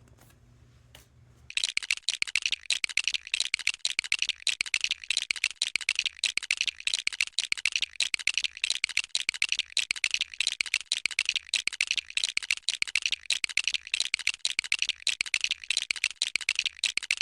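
A rapid, continuous rattle of sharp clicks, many to the second at an even level, starting about a second and a half in.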